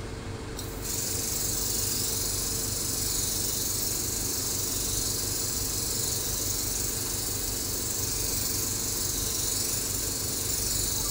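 Spray mist gun of a HydraFacial machine hissing steadily as it jets a fine water mist onto the face, starting about a second in. A steady low hum runs underneath.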